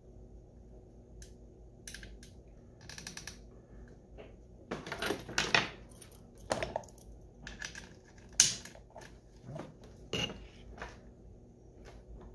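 Rifle parts being handled on a tabletop: an AR-15 upper with its scope, mounts and sling hardware knocking and clicking, metal and polymer on metal. The clicks and clatters come irregularly, a dense cluster about five seconds in and a single sharp click, the loudest, about eight seconds in, over a faint steady hum.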